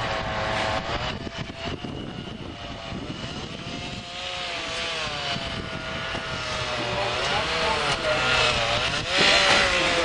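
An engine running, its pitch rising and falling gently and slowly, over a steady background rush.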